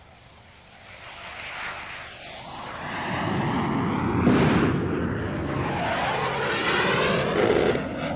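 Military jet aircraft flying low past: its engine noise swells over the first few seconds and stays loud, with its tone sweeping as it passes, then eases slightly near the end.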